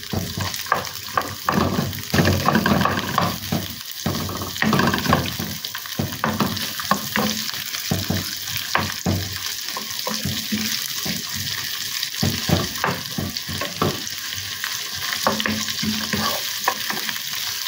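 Sliced onion and garlic sizzling in hot oil in a nonstick frying pan, stirred with a wooden spoon that scrapes and knocks against the pan over and over.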